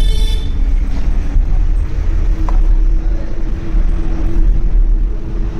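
Steady low rumble of road traffic with a constant engine-like hum.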